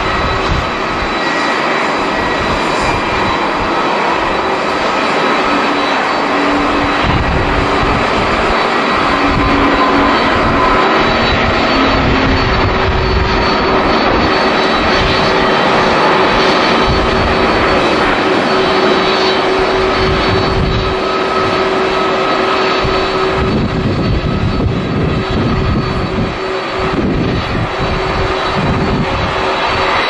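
Airbus A350-900's Rolls-Royce Trent XWB engines at takeoff thrust through the takeoff roll and climb-out: a loud, steady jet roar with a high fan whine over it. Strong wind buffets the microphone.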